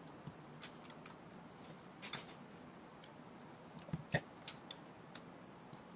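Irregular small clicks and taps of hand tools working on a small engine's valve gear, as the valve lash is checked with feeler gauges and the adjuster nuts are snugged down. A louder knock comes about two seconds in and two sharper knocks around four seconds in.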